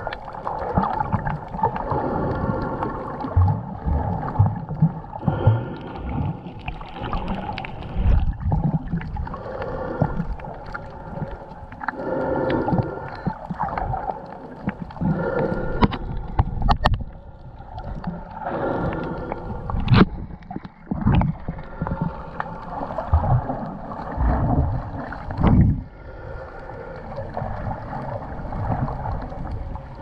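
Muffled underwater sound through a GoPro HERO6's waterproof housing: water moving against the case with a steady hum and uneven low rumbles, and a few sharp knocks.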